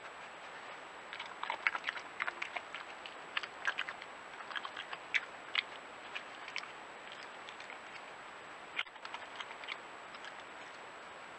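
European badger crunching peanuts: a run of short, irregular crunches, a pause, then a few more near the end. A steady hiss and a thin high whine sit under them.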